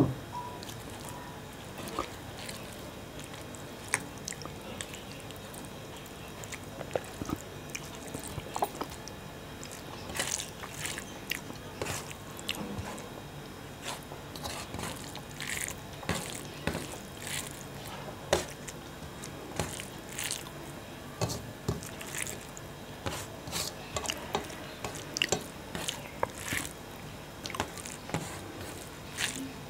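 A hand mixing rice and fish curry on a steel plate: soft wet squelches and light scraping clicks of fingers against the plate, coming thicker from about ten seconds in. A sharp knock right at the start.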